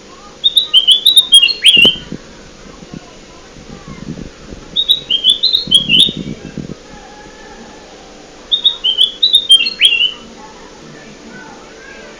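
Kutilang emas bulbul song used as a bird-lure call: a phrase of quick, stepping whistled notes ending in a downward slur, repeated three times about four seconds apart.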